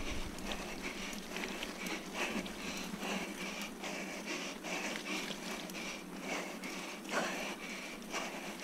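Mountain bike rolling slowly over a bumpy grass and dirt track, with light irregular clicks and rattles from the bike and tyres.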